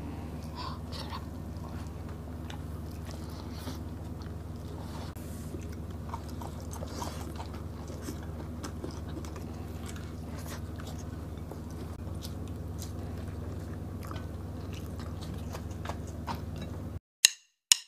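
Close-miked chewing and mouth sounds of people eating smoked fish and rice by hand, over a steady low hum. Near the end the sound cuts out, broken by a couple of sharp hits.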